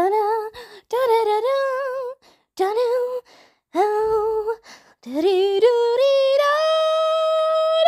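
A high voice humming a wordless tune in short phrases, then a long note that climbs a little and is held for the last few seconds.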